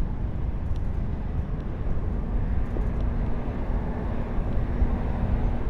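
Steady low rumble of jet airliner engines with wind buffeting the microphone; a faint steady hum joins about two seconds in.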